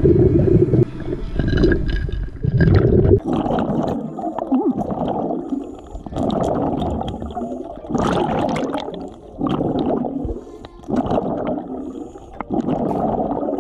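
Scuba diver's exhaled bubbles gurgling out of the regulator, picked up underwater by a GoPro in its housing, in a run of bursts about every second and a half. Heavier low rumbling comes in the first few seconds.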